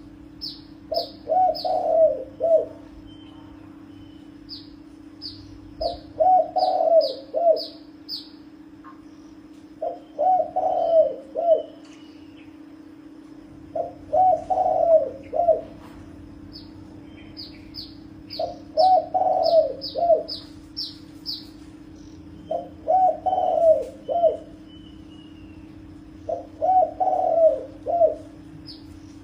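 Spotted dove cooing: a phrase of several notes, repeated about every four seconds, seven times. Short runs of high chirps come between the phrases.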